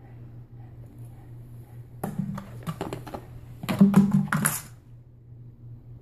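An empty plastic soda bottle crinkling and clattering as a dog paws at it. A quick run of sharp clicks starts about two seconds in, with a louder burst about two seconds later, then it stops.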